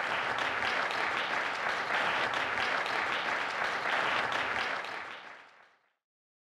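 Audience applauding steadily, then fading out about five seconds in.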